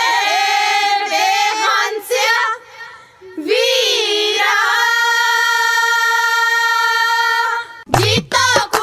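A single high female voice singing long, drawn-out notes of a Punjabi folk song, with a short break about a third of the way in. Near the end the backing music comes in with drum beats.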